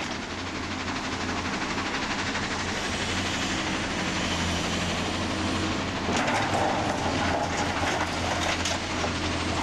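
Heavy diesel construction machine running, with a steady low engine rumble and metallic clattering. It grows louder about six seconds in.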